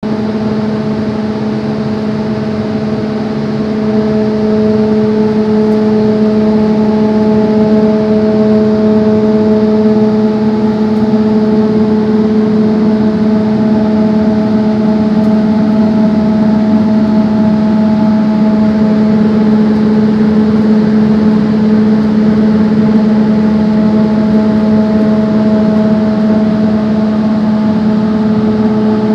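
Fluidized-bed grain dryer running: a steady machine hum with a rush of air over it, growing a little louder about four seconds in and then holding steady.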